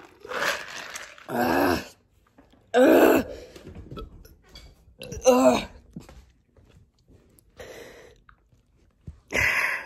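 A person drinking soda from a cup, then a string of about six short breathy gasps and exhalations with a couple of brief groans.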